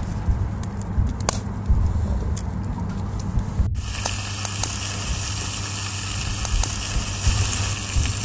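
Hardtack biscuit being crumbled between the fingers: a few sharp crackling snaps over a steady low rumble. About four seconds in the sound cuts abruptly to a steady hiss.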